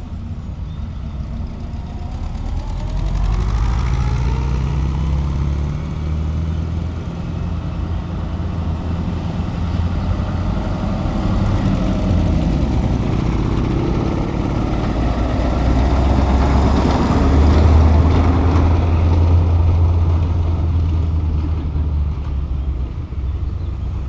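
Engines of WWII German military vehicles passing one after another on a dirt track: a VW Kübelwagen, a large Wehrmacht half-track and a VW Schwimmwagen. An engine revs up about three seconds in, and the half-track's low engine note is loudest about two-thirds through as it passes.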